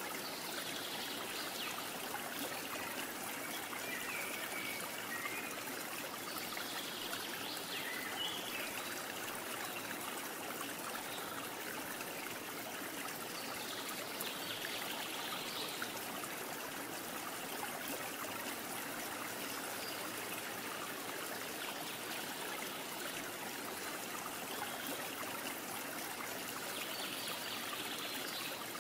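Steady sound of running water, like a small trickling stream.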